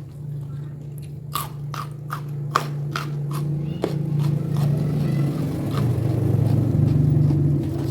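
Close-up chewing with several crisp crunching bites, as of raw vegetables and jengkol, mostly in the first half. A steady low hum runs underneath and grows louder toward the end.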